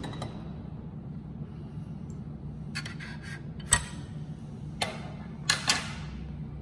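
Metal lab tongs clicking against glassware and the bench as a copper cube is moved from hot water into a cup of cold water: a few light taps, a sharp click about halfway through, and two quick clacks near the end as the tongs are set down. A steady low hum runs underneath.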